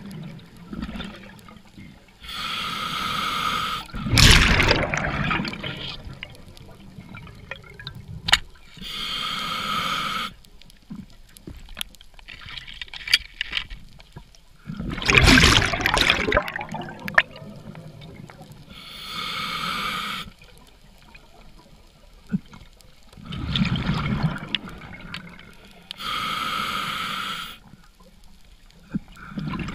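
Scuba regulator breathing heard underwater: four hissing inhalations of about a second and a half each, alternating with louder rushes of exhaled bubbles.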